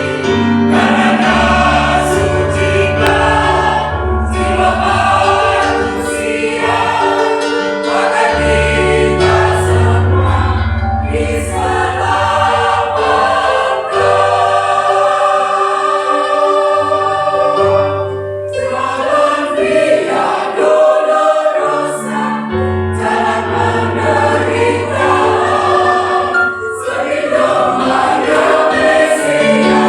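Church choir singing a slow sacred song in parts, over sustained low accompaniment notes that change every few seconds.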